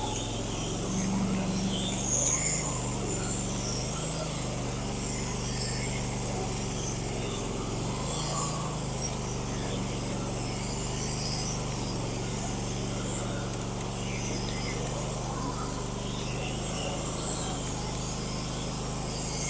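Wood-Mizer LT15 bandsaw sawmill running steadily as its blade cuts the first flat face along a large cedar log.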